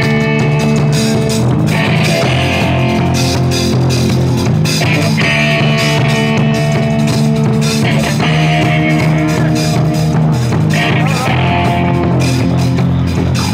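Live rock band playing loudly: electric guitar and a drum kit in a steady, driving groove.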